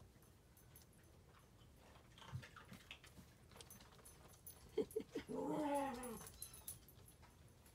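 A drowsy, milk-full toy Australian Shepherd puppy gives one short whimper about five seconds in, its pitch rising then falling, after a few faint squeaks and small clicks.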